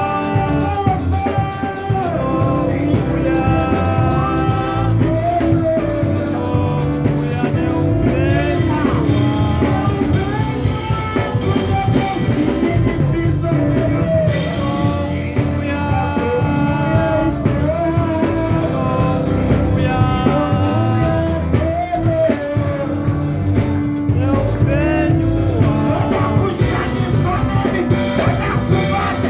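A song with a sung vocal over guitar, bass and a drum kit, playing steadily throughout.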